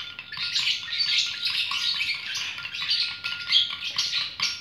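Small birds chirping continuously, many short calls overlapping, over a faint steady high tone.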